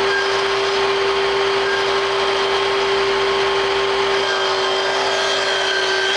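Sliding miter saw running at full speed with a steady whine, its blade brought down through crown molding to make a miter cut near the end.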